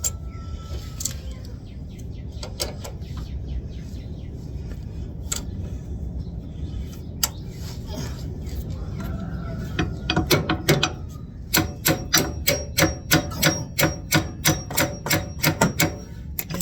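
Hand tool working metal parts of a car's front suspension: scattered clicks, then from about ten seconds in a steady run of sharp metallic clicks, about three a second.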